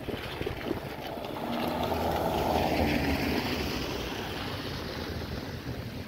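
A car passing close by on a wet road, its tyre hiss swelling to a peak two to three seconds in and then fading away.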